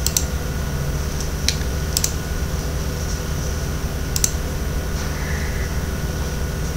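A few sharp computer mouse clicks, about four, spaced unevenly over several seconds, over a steady low electrical hum.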